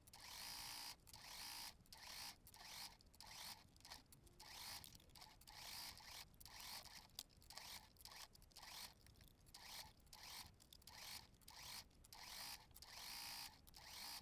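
Faint domestic sewing machine stitching a seam in short stop-start spurts, about one and a half a second.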